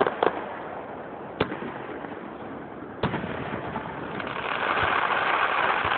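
Aerial fireworks going off: a few sharp bangs about a second and a half apart, then a louder, sustained hiss that builds up from about two-thirds of the way through.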